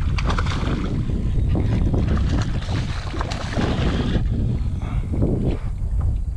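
Wind buffeting the microphone, with water splashing and sloshing around a kayak as a hooked redfish is fought alongside. The splashing is busiest in the first four seconds and eases after.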